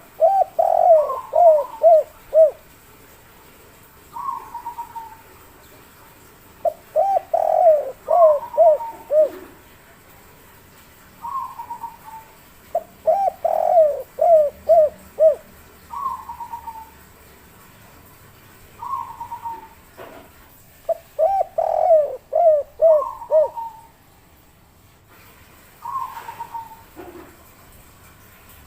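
Spotted dove (derkuku) cooing its 'kuk 3' song: four bouts of about five or six quick, rising-and-falling coos, repeated every six to eight seconds.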